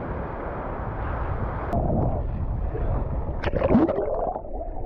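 Surf and wind noise at the water's edge, cut off by a click about two seconds in. Muffled underwater sound follows, with bubbling gurgles near the end.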